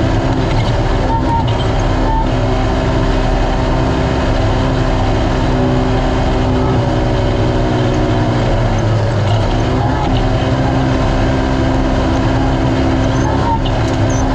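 Naturally aspirated Polaris RZR race UTV engine running hard at steady high revs. About nine seconds in its pitch drops briefly, then climbs back. A steady rush of noise runs underneath.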